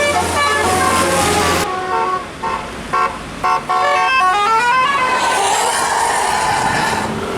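A bus's telolet musical air horn playing a tune of short stepped notes, with a quick upward run of notes about four to five seconds in. A steady noisy rush follows near the end.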